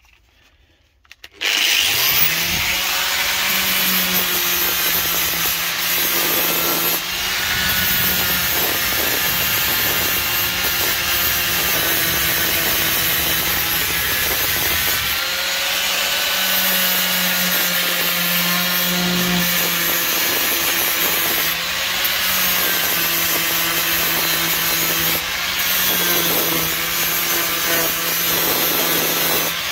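Angle grinder spinning up about a second and a half in, then grinding down weld seams on a car's steel floor pan: a steady motor hum under a harsh continuous hiss of the disc on metal.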